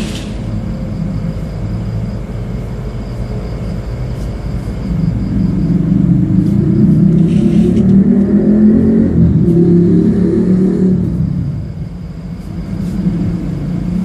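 Deep, wavering hum of a large metal singing bowl, swelling louder about halfway through and easing off near the end.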